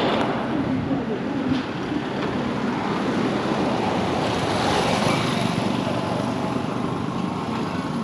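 Street traffic noise, steady and fairly loud, with a vehicle passing close about halfway through.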